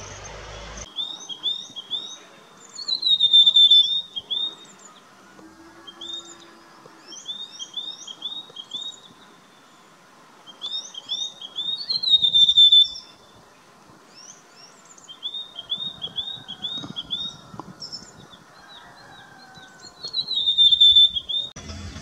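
Rufous sibia calling: phrases of quick, sharp whistled notes on nearly the same pitch, repeated every few seconds. Three louder, longer falling whistles stand out, near the start, in the middle and near the end.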